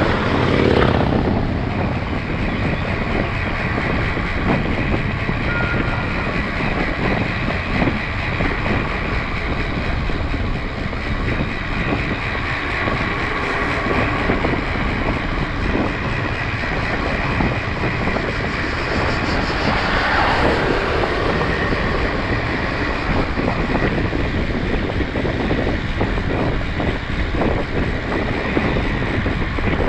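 Steady riding noise from a mountain bike on the move: wind rushing over the camera microphone with the rolling rumble of the tyres. A swell of noise rises and falls about twenty seconds in, and another comes right at the start.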